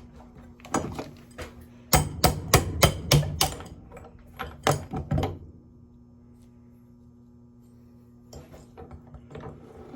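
A quick series of sharp metal knocks and clinks, a few a second, from small scrap metal parts being struck or handled. They stop about halfway through, leaving a steady low hum, and a few fainter clicks come near the end.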